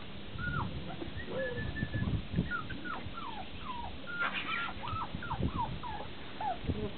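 Petit Basset Griffon Vendéen puppies whimpering: a string of short, high squeaks, most falling in pitch, coming thickest from about two seconds in, over low bumps.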